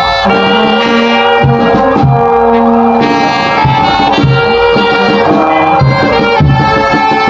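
Music: a slow melody of long held notes over occasional low drum beats.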